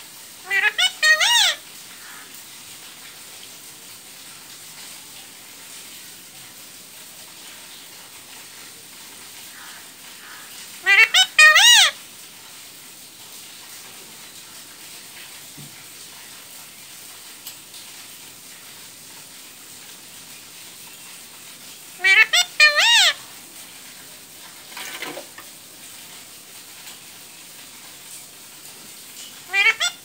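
Caged Alexandrine parakeet giving short, loud, shrill calls: four bursts of a few quick notes each, roughly every ten seconds.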